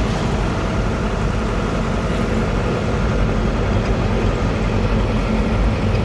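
Steady engine and road noise heard from inside the cab of a moving vehicle, with tyres running on a wet road.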